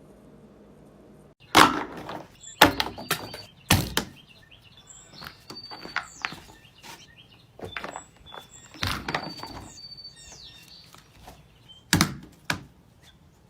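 Fidget toys being handled: a run of irregular sharp pops and clicks, loudest about a second and a half in and again near the end, with a few brief high chirps between them.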